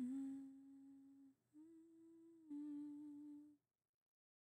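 A woman's voice quietly humming a slow tune in long held notes, the middle one a little higher than the others, ending about three and a half seconds in.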